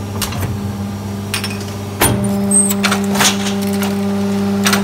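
PET preform injection moulding machine running with a steady hydraulic hum. About two seconds in a sharp clack as the mould opens, and the hum shifts to a higher, louder tone, followed by several clicks and clatters.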